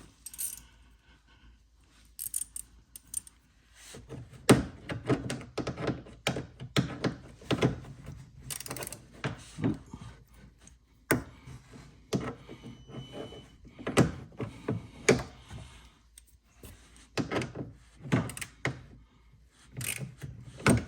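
Irregular knocks, taps and clicks of a wrench and hands working under a car's front wheel arch, undoing a small screw at the bottom of a plastic mud flap.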